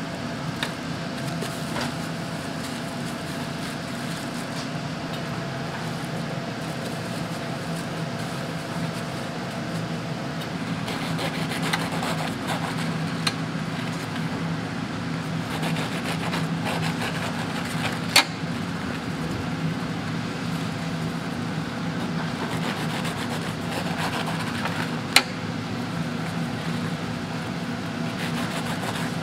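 Steady machine hum of kitchen equipment, with scratchy rasps of a knife cutting through crisp sugar-coated churros. A couple of sharp clicks come from the knife meeting the wire rack.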